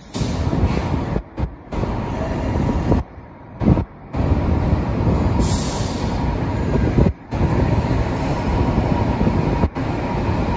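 XPT passenger carriages rolling past at low speed, wheels rumbling steadily on the rails. A brief hiss of air comes about five and a half seconds in, and the sound drops out for a moment several times.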